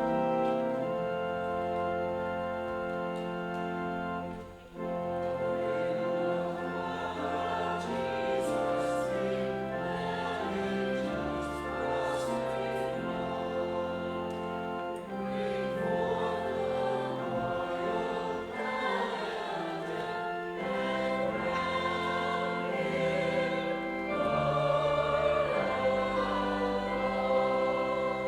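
Offertory music: a church choir singing held, sustained chords over organ accompaniment, with a brief break about four and a half seconds in.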